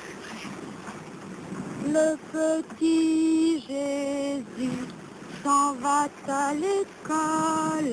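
Wind noise, then from about two seconds in a woman's voice singing a slow tune of long, held notes with short breaks between them.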